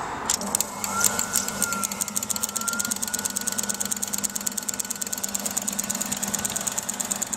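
Compact washing machine's motor starting on the spin cycle: a steady hum with a whine that rises about a second in and then holds, over a rapid, even clicking.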